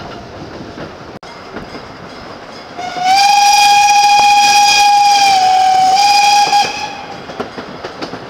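Steam locomotive whistle sounding one long blast of about four seconds, its pitch dipping briefly near the end of the blast. It is heard from a carriage of the narrow-gauge train the locomotive is pulling, over the steady running rattle of the coaches.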